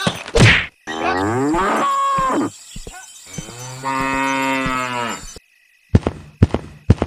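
Two long animal calls, cattle mooing: the first falls in pitch and the second is held steady and low. Near the end, sharp footstep clicks come about twice a second.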